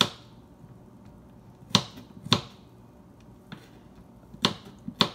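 Kitchen knife slicing garlic cloves on a wooden cutting board: sharp knocks of the blade hitting the board, five loud ones at uneven intervals with a few lighter taps between them.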